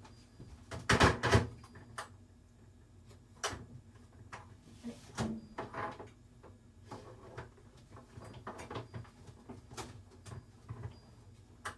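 A string of scattered knocks and clatters from handling things in a kitchen: cupboard or door bumps and items being set down. The loudest cluster comes about a second in.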